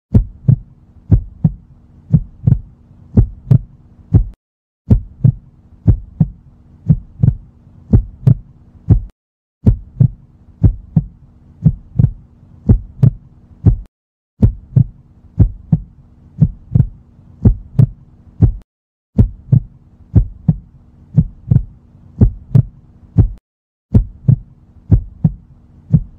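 Heartbeat sound effect: pairs of deep thumps repeating a little faster than once a second over a faint steady hum. It runs in stretches of about four and a half seconds, each cut off by a short silent break.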